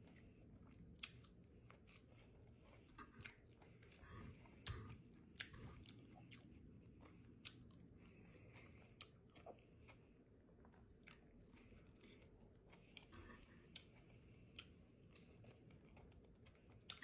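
Faint chewing of buffalo-sauced fried catfish, with many short, sharp clicks and smacks scattered throughout.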